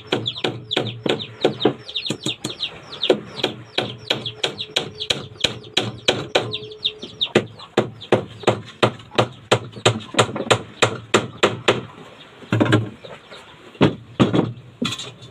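Rapid, regular strokes of hand work on wood, about four a second, stopping about twelve seconds in, then a few separate knocks.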